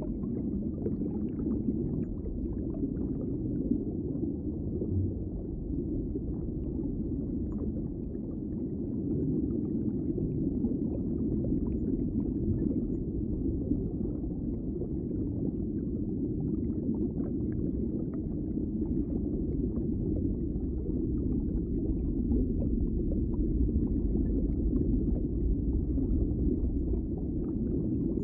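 Underwater ambience: a steady, muffled low rumble of water with faint small pops scattered through it.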